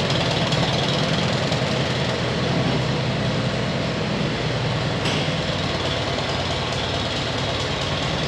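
Farm tractor engine running steadily at low speed while it moves a wagon, with a brief click about five seconds in.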